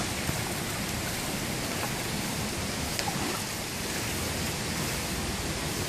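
Shallow river water running over rocks, a steady rushing hiss.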